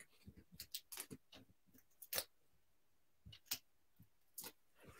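Faint, scattered clicks and light taps of fingertips and nails pressing foam adhesive dimensionals onto a piece of black cardstock.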